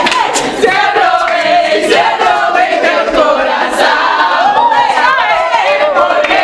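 A group of young people's voices all at once, overlapping in excited shouting and cheering.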